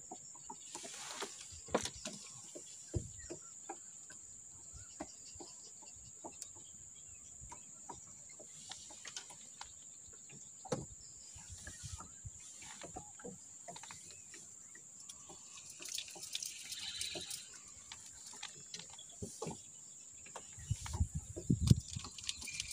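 Quiet riverside ambience: a steady high insect buzz, with faint scattered clicks and taps. Near the end come a few louder low knocks or bumps, the loudest sounds here.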